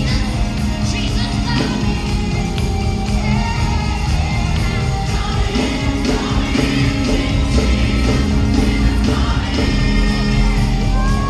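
Live gospel worship music: a band with singers, with crowd voices mixed in.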